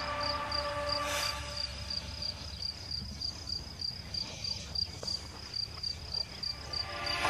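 High, faint insect chirping: a thin pulsed note repeating about four times a second, steady throughout, with background music fading out in the first second.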